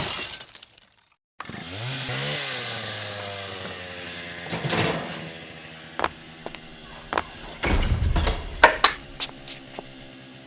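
A hit at the start fades out. Then a small motor starts, revs up briefly and runs steadily, like a chainsaw or power tool, with a string of sharp knocks and clanks over it.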